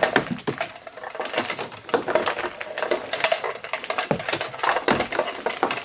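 Vintage sewing machine foot pedal controllers and their cords being handled, a busy run of clicks and rattles.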